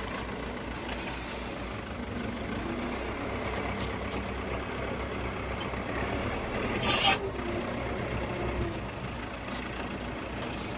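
TL100 tractor's diesel engine running steadily while moving hay bales, with one short, loud hiss about seven seconds in.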